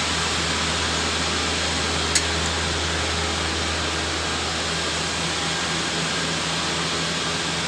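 An engine or motor running steadily, a constant low hum under a wash of noise, with a single sharp click about two seconds in.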